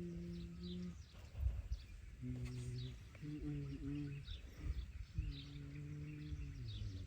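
Small birds chirping, short repeated high falling calls, over a low humming tune that holds steady notes in four short phrases and steps between pitches.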